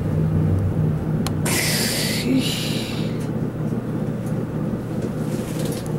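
Glass passenger elevator car travelling between floors with a steady low machine hum, a sharp click about a second in and a short hiss soon after.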